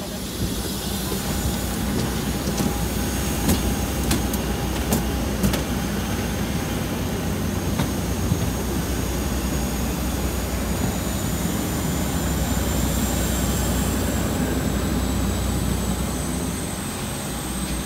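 Steady airport apron noise: a low rumble of engines with a thin high whine that rises slowly in pitch, and a few sharp clicks.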